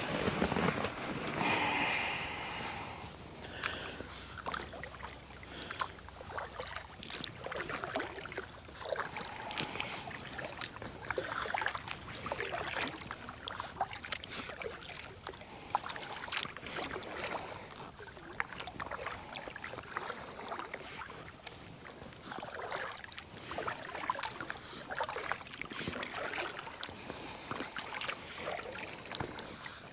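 Paddling an inflatable kayak: the paddle dips and splashes in the water in an irregular run of strokes.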